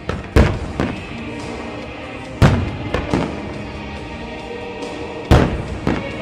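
Aerial firework shells bursting: three loud booms about two and a half seconds apart, each followed by one or two smaller bangs, over music playing throughout the display.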